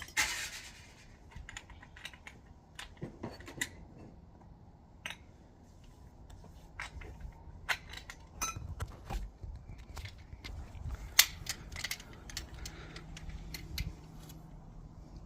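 Scattered sharp metallic clicks and clinks of hand tools and fittings being handled, with a few dull low knocks in the middle.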